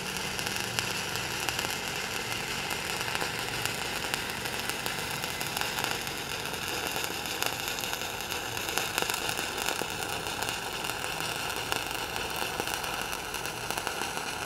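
Stick (SMAW) welding arc crackling and hissing steadily as a weaved cap pass is run vertical-up at about 92 amps.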